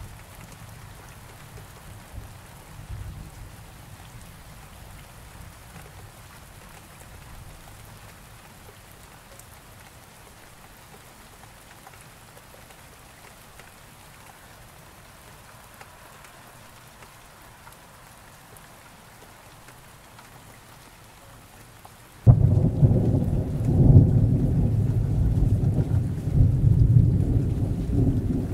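Steady rain falling, with a low thunder rumble dying away in the first few seconds. About 22 seconds in, a sudden loud thunderclap breaks into a long rumble that lasts to the end.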